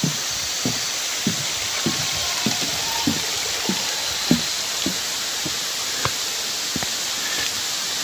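Footsteps at an even walking pace, about one step every 0.6 seconds, on a wooden boardwalk and rock-and-log trail steps, over a steady hiss of running water.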